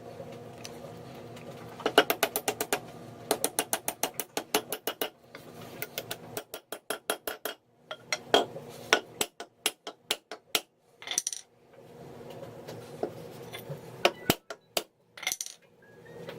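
Hand hammer blows ringing on steel at the anvil in quick runs of about five or six strikes a second, then slower scattered blows, during the forging of a rounding hammer head. A steady hum runs underneath.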